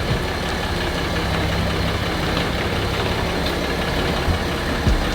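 Vehicle engine running steadily at a low, even pitch, with a couple of short knocks near the end.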